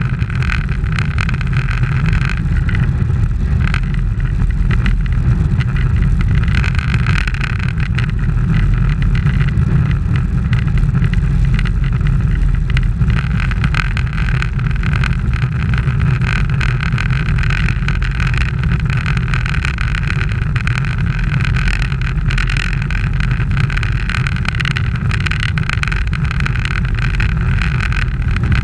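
Steady wind noise and road rumble on a camera mounted on a moving road bicycle, riding in a bunch of road cyclists; a loud, even rush with no breaks.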